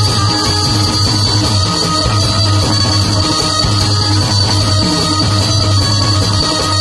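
Loud live jas devotional folk music from a seated stage group, with hand drums and other instruments playing together in a steady pulsing rhythm.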